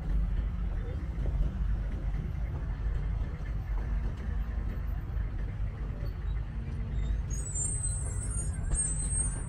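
Steady low rumble of city street traffic, with a high wavering squeal joining in the last two seconds.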